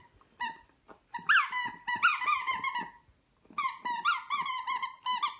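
Orange squeaky ball squeaking as a dog chews it: one squeak, then two long runs of quick squeaks with a short pause between.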